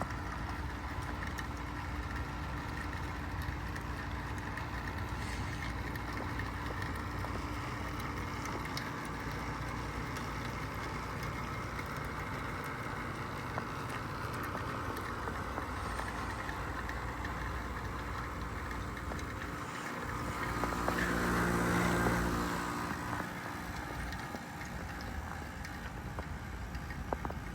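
2025 Carrier Comfort A2L heat pump outdoor unit running steadily through a defrost cycle, a constant mechanical hum. About twenty seconds in a louder whooshing sound swells, peaks and fades over a few seconds.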